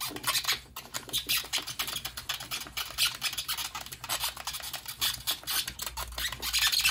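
Hand edge burnisher rubbed quickly back and forth along the inked edge of tooling leather: a steady run of short, scratchy rubbing strokes.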